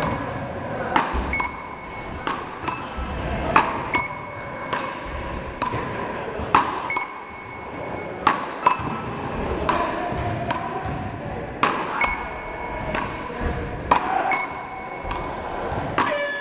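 Paddle-ball rally: a sharp crack of paddle on ball about every second to second and a half, each followed by a short electronic beep from the hit-counting machine, some beeps higher and some lower. The hits echo through the large hall.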